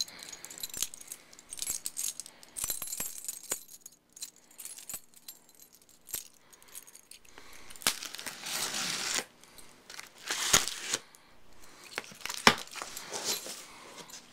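Keys jingling in short metallic bursts, mixed with scattered clicks, knocks and rustling from handling a cardboard box; the louder rustles and knocks come about halfway through and toward the end.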